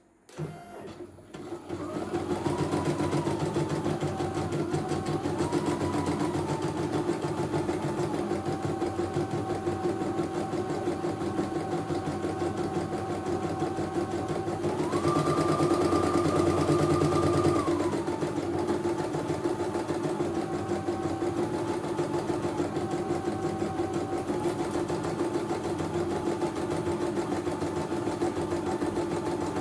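CNY E900 computerised embroidery machine starting about half a second in and stitching steadily: a fast, even needle clatter over a motor whine that steps up and down in pitch several times. It is louder and higher-pitched for about three seconds in the middle.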